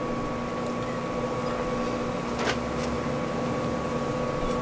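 Steady machine hum made of a few constant tones, with one faint tick about two and a half seconds in.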